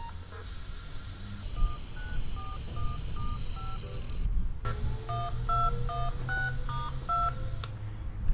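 Siren activation tones received over a scanner radio: two quick runs of short two-note touch-tone beeps, with a brief break between them about halfway through. The tones signal that the outdoor warning siren is about to sound.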